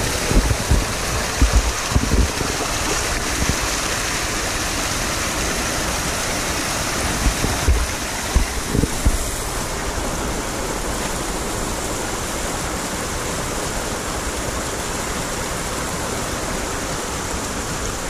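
River water running steadily, a constant rush with no let-up. A few short low thumps sound in the first half.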